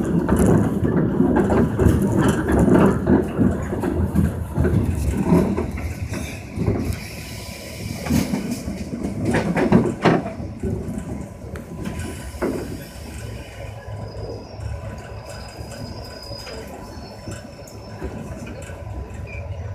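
Inside a moving Korail Line 1 resistance-controlled electric train car (the 1x70 set): running noise and wheels on rail. It is louder for the first six or seven seconds, then quieter, with a few sharp knocks about eight, ten and twelve seconds in.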